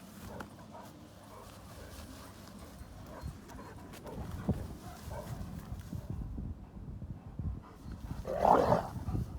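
Cane Corso dogs moving about, with many soft low thuds from their paws on the ground. Near the end comes one short, loud dog vocalization.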